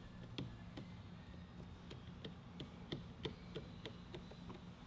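Faint small clicks, about three a second, from fingers pressing an adhesive-backed LED light strip onto a plastic ride-on toy car body, over a low steady hum.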